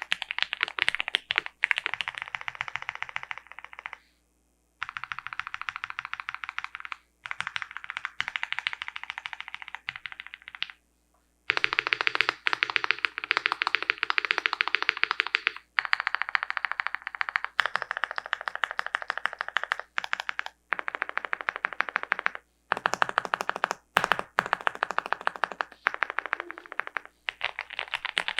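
Fast typing on an Owlab Mr. Suit custom mechanical keyboard with lubed Gateron Box Ink Black linear switches, a POM plate and GMK keycaps: a dense stream of keystrokes in runs of a few seconds, broken by short pauses.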